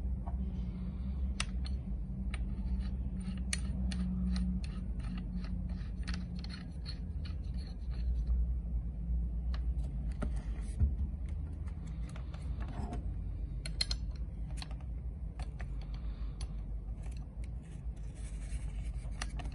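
Small metal clicks, clinks and scrapes as a flange nut is threaded onto an angle grinder spindle over a diamond cup wheel and tightened with a two-pin spanner. The clicks come thick and fast for the first few seconds, then more scattered, over a steady low hum.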